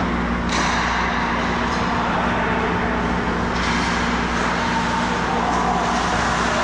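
Steady ice-rink background hum and hiss, with two brief hissing surges, one about half a second in and another around three and a half seconds in.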